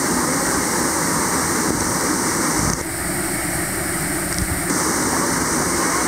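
Waterfall: a steady rush of water pouring down a moss-covered rock face, dipping slightly in level for about two seconds midway.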